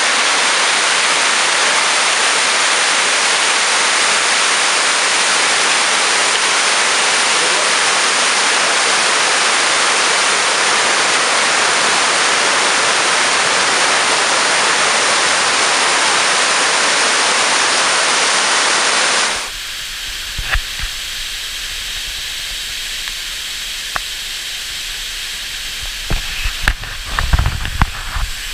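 Floodwater pouring over the stone face of Derwent Dam in overflow: a loud, steady rush. About two-thirds of the way through it changes to a quieter rushing from closer to the foot of the wall, with scattered low thumps and knocks toward the end.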